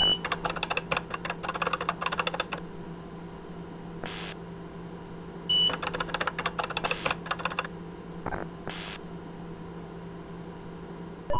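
Computer keyboard typing in two quick runs of clicks, each starting with a short high beep, over a steady electronic hum like an old computer terminal.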